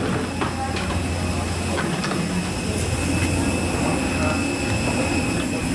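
Steady low hum inside the cabin of an Airbus A321 on the ground before takeoff, with a constant high whine and scattered light clicks and rattles.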